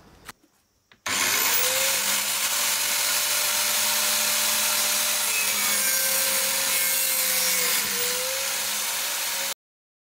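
Electric angle grinder in a cut-off stand, spinning up about a second in and running with a steady whine while its disc cuts grey PVC pipe. The pitch sags briefly under load near the end, then the sound cuts off abruptly.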